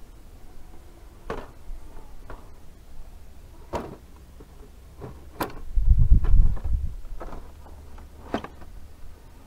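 A scale RC rock crawler working over sandstone: a few separate knocks and clicks as its tyres and chassis bump against the rock, with a short low rumble of wind on the microphone a little past the middle.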